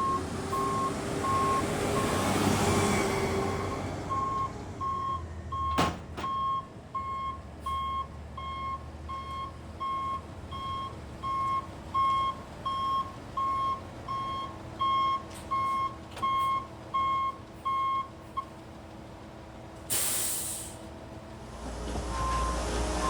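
Concrete mixer truck reversing: its backup alarm beeps steadily, about one and a half beeps a second, over the running diesel engine, then stops about 18 seconds in. About two seconds later comes a short, loud hiss of air from the truck's air brakes, and the engine grows louder just before the end.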